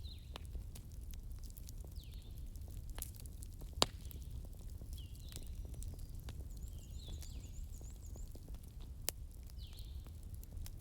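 Wood fire crackling in a fireplace, with a low steady rumble under a scatter of small crackles and two sharp pops, about four and nine seconds in.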